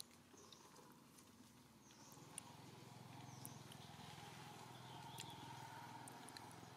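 Near silence: faint outdoor background, with a low steady hum coming in about two seconds in and a few faint high chirps.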